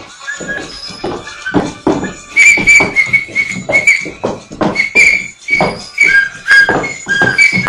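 Upbeat party dance music with a steady beat and short, high piping notes repeating over it.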